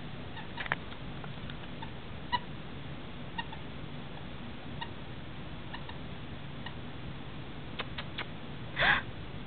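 A dog's squeaky plush toy giving faint short squeaks and clicks as a Yorkshire terrier mouths it, with one louder, longer squeak near the end.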